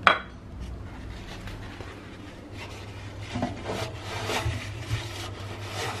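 A short sharp sound right at the start, then irregular rubbing and scuffing as a damp tissue wipes the inside of a front-loading washing machine's stainless-steel drum. The wiping gets busier from about halfway through.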